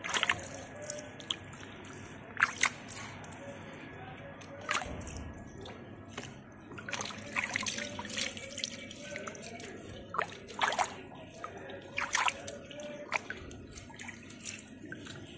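Water splashing and dripping as pieces of cut fish are rinsed by hand in a vessel of water, in irregular splashes a second or a few seconds apart.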